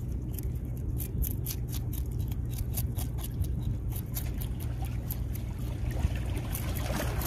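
Water splashing and trickling in many small, quick splashes.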